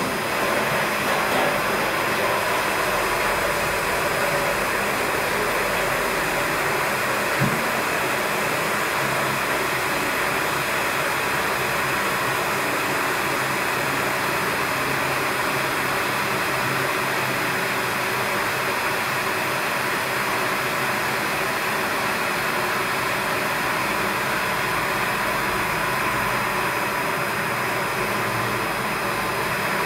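Small electric transfer pump starting up and running steadily, a constant rushing noise with a thin steady whine, as it drives hot caustic soda through a hose to the spray ball inside a stainless-steel fermenter during clean-in-place.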